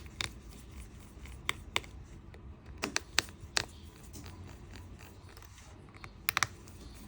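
Scattered light, sharp clicks, some in quick pairs, of a small precision screwdriver and tiny screws against a phone's internal metal plate as the screws holding the plate are taken out.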